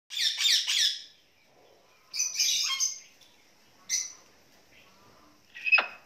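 Pet parrots squawking in short, loud, high-pitched bursts: three quick calls at the start, another cluster about two seconds in, a brief call near four seconds and one more near the end.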